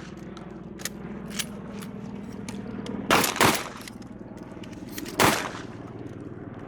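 Shotguns firing: two fainter reports in the first second and a half, then two loud shots in quick succession about three seconds in and another loud shot about two seconds later.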